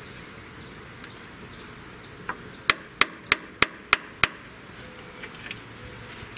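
A hand tool tapping sharply on a boat's transducer mounting bracket, six quick hard taps about three a second after one lighter tap, nudging the bracket to bring it level.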